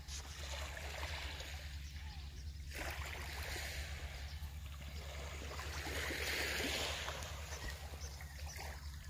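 Small waves of a calm sea lapping and washing at the shore, a little louder around six to seven seconds in, over a steady low rumble.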